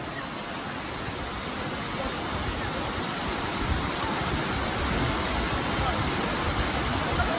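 Water rushing steadily over a rocky waterfall on a creek swollen by recent rain, gradually growing louder.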